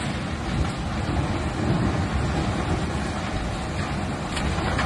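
Floodwater of a swollen river rushing past in a steady, deep, churning noise.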